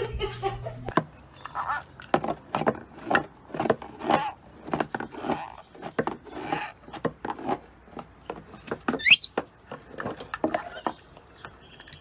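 Rainbow lorikeet with a plastic cup on a cardboard shelf: a quick, irregular run of sharp taps and knocks mixed with short chattering calls, and one fast rising whistle about nine seconds in, the loudest sound.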